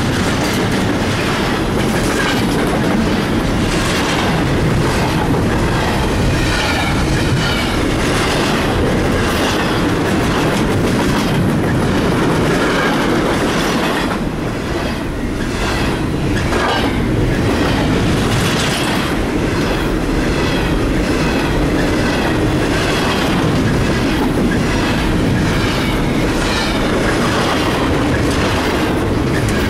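Double-stack container train's well cars rolling past close by: a loud, steady rumble of steel wheels on rail with regular clickety-clack as the wheelsets cross rail joints.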